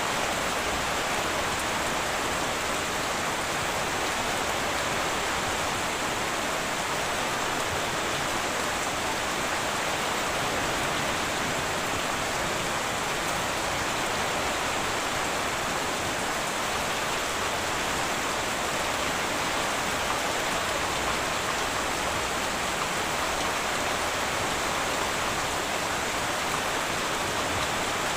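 Heavy rain falling steadily on a tin roof, a dense, even hiss.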